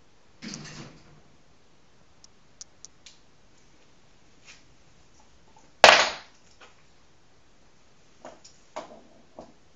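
Small dog gnawing a hard bone treat, the bone clacking and scraping on the wooden floor: a scrape at the start, a few light ticks, one loud sharp crack about six seconds in, then a few more knocks near the end.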